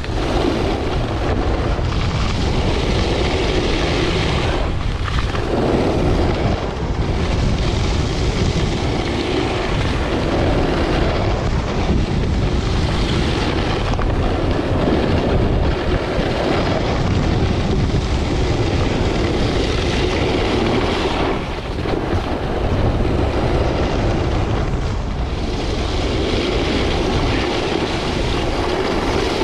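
Wind rushing over the microphone of a camera carried downhill, mixed with the steady scraping hiss of sliding on groomed snow. The noise is loud and continuous and swells and dips as speed changes.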